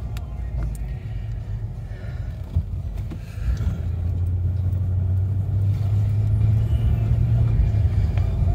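Low rumble of a car driving, heard from inside the cabin, with the engine's hum growing louder about halfway through.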